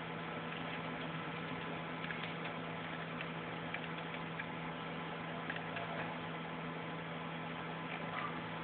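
Steady low hum over a background hiss, with a few faint clicks scattered through.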